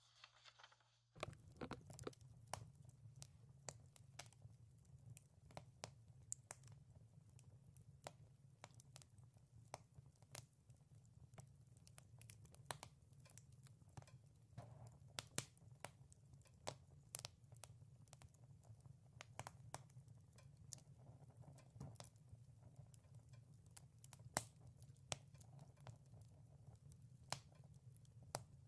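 Wood fire crackling: irregular sharp pops and snaps over a steady low rumble, starting about a second in after near silence.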